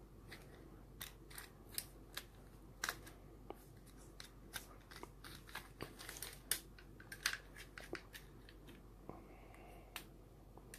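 Irregular light clicks and taps of a Mollar belt sander attachment's plastic housing and metal clamp being handled and fitted onto an angle grinder.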